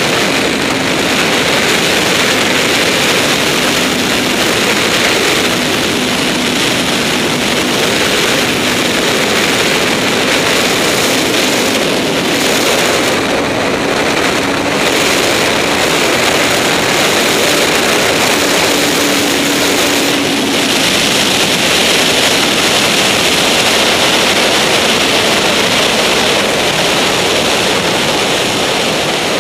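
Heavy, steady wind rush over the rider's camera at highway speed on a Honda CBR954RR, with the bike's inline-four engine running as a faint steady note beneath the wind.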